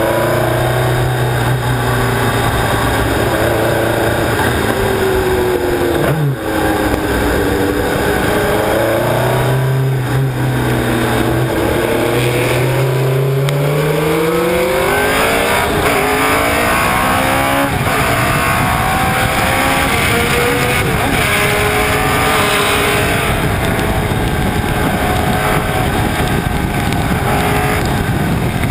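Alfa Romeo T33 race car engine at racing speed, heard close up from a camera mounted on the car, its pitch climbing and dropping repeatedly as it is driven through the corners, with a brief dip about six seconds in. Wind and road noise run underneath.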